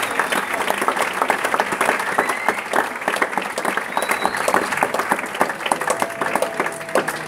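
Audience applauding: many hands clapping densely and steadily, easing off slightly toward the end.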